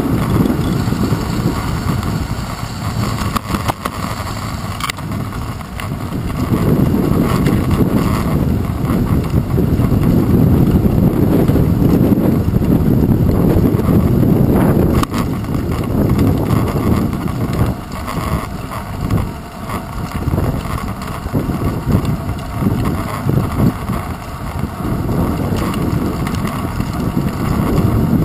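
Rumble of a bicycle riding over rough asphalt, heard through a handlebar-mounted GoPro Hero 2, with wind noise on the microphone swelling and easing. There are a few sharp knocks from bumps in the path.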